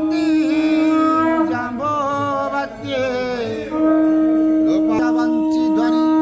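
A voice chanting a Sanskrit devotional hymn in a slow, melodic style, with long held notes and gliding ornaments between them.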